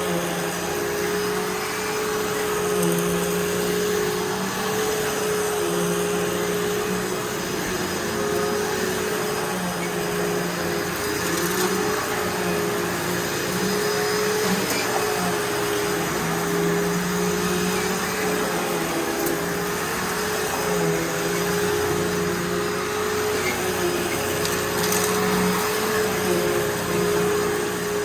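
Hoover Elite Rewind vacuum cleaner running steadily while vacuuming, its motor giving a constant whine. A lower hum swells and fades every second or two as it is worked back and forth.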